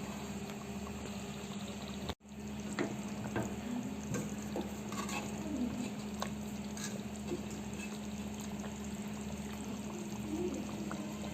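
Chicken pieces sizzling and simmering in a pot as they are turned over with a utensil, with a few light clicks of the utensil against the pot over a steady hiss and low hum. The sound briefly drops out about two seconds in.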